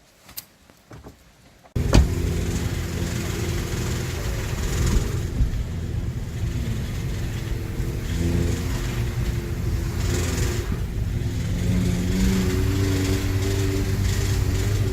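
A few faint clicks, then about two seconds in the Suzuki Swift Sport's engine starts and settles into a steady run. It is an engine with 130,000 km on it whose owner reports a new rattling noise.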